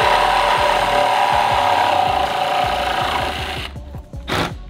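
Cordless Milwaukee M12 Fuel reciprocating saw cutting through the car's front bumper support, a loud steady rasping buzz that stops a little under four seconds in, followed by a couple of short knocks.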